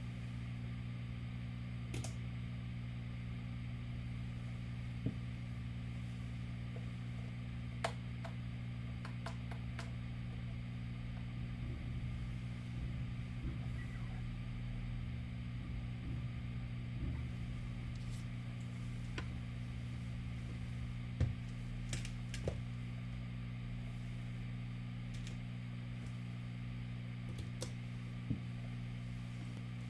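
Steady low electrical hum with faint room noise, broken by a handful of scattered soft clicks.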